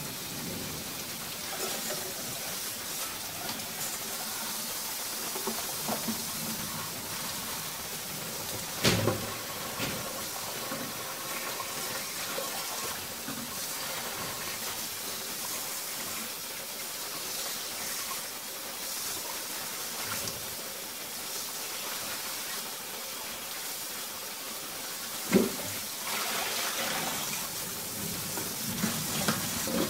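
Prawns in sauce sizzling and simmering steadily in a covered pan under a glass lid on low heat, with two sharp knocks about sixteen seconds apart.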